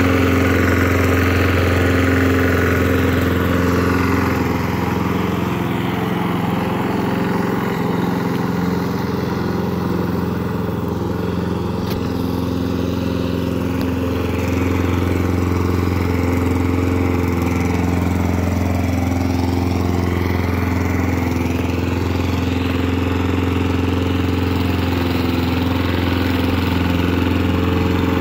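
Small gasoline engine of a walk-behind lawn mower running steadily at constant speed. It gets a little fainter a few seconds in and comes back up later.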